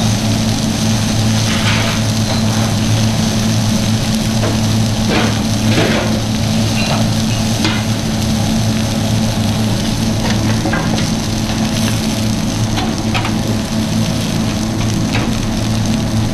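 Red onion wedges sizzling steadily on a hot stainless steel flat-top griddle as they are turned with metal tongs, with scattered light clicks of the tongs on the steel. A steady low hum runs underneath.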